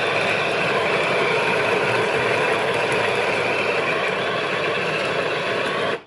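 Wilfa Svart electric burr coffee grinder running steadily, grinding coffee beans at its finest setting; the motor and burrs stop abruptly at the very end.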